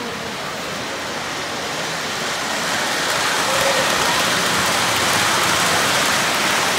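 Three-rail O-gauge model train running past close by, its wheels and motor on the track making a steady rushing noise that builds over the first few seconds as it nears.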